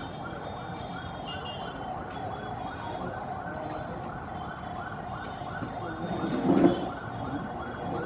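A warbling, siren-like electronic tone rising and falling about three times a second without a break, with a louder, lower burst of sound about six and a half seconds in.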